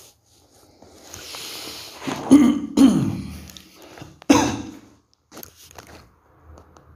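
A man coughing and clearing his throat: two coughs about two seconds in and a third a little over a second later.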